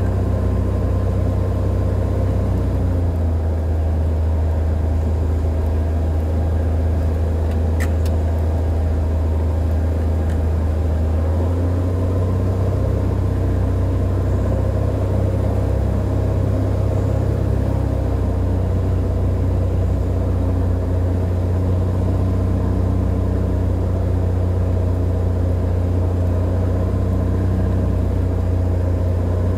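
Cessna 182R Skylane's six-cylinder Continental O-470 engine and propeller droning steadily, heard inside the cockpit in flight. The low note drops slightly a few seconds in and comes back up after about twelve seconds.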